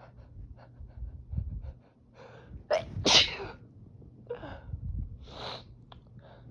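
A person sneezing during a sneezing fit: a drawn-in breath, then one loud, sharp sneeze about three seconds in. Another breath in and a second, weaker burst follow near the end.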